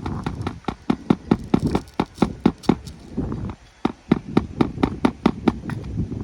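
Hammer driving roofing nails into asphalt shingles: a rapid, steady run of sharp strikes, about four a second, with a brief pause about halfway through.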